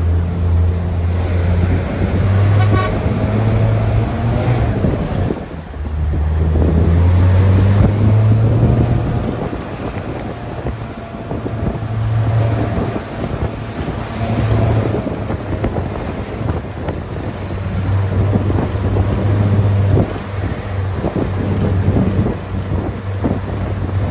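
A vehicle engine running while driving, its pitch rising and falling as it changes speed, with a brief drop about five seconds in. Wind or road noise buffets over it.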